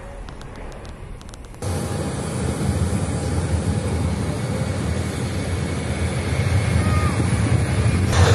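Airliner jet engines heard across an airfield. It is fainter with a few sharp clicks at first. After a sudden cut about a second and a half in comes a loud, steady jet roar that slowly grows louder.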